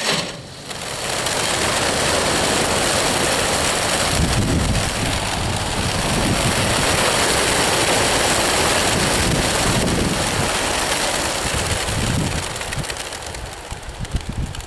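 Hundreds of racing pigeons bursting out of a transport truck's opened crates all at once: a loud, dense rush of wingbeats that starts suddenly, holds steady, and thins out near the end as the flock climbs away.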